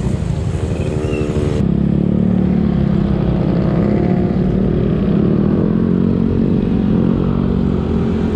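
Motor scooter engine running steadily with an even hum; about a second and a half in the sound changes abruptly to a louder, steadier engine note.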